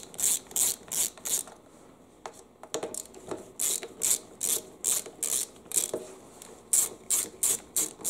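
Ratcheting screwdriver clicking in runs of quick strokes, about three a second, as screws are backed out of a lawn mower's engine housing. There is a short pause about two seconds in, then the clicking resumes on the next screw.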